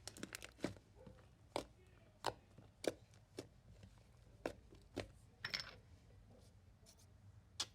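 Slime being squeezed and stretched by hand, giving a string of sharp clicks and pops about every half second to second, with a longer crackle about five and a half seconds in.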